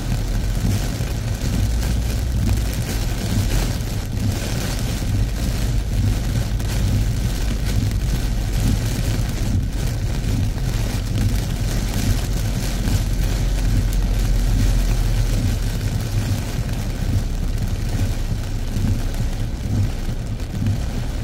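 Heavy tropical rain beating on a car, heard from inside the cabin: a loud, steady hiss of rain over the constant low rumble of the car moving on a wet road.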